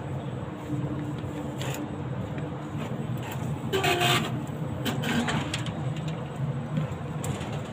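Steady hum in a metro station concourse, with a louder short burst of mechanical noise and a brief tone about four seconds in as the ticket gate's glass paddle doors open.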